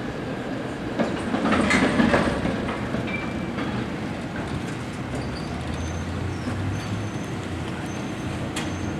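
A streetcar running along its rails. It is loudest from about one to two and a half seconds in, with sharp clicks from the wheels over the track, then settles into a steadier, lower running sound.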